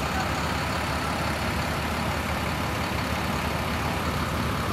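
Tour coaches' diesel engines idling with a steady, even rumble.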